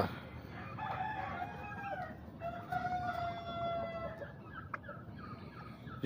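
Domestic turkeys calling: several drawn-out calls overlapping one another, starting about a second in, with a single small click near the end.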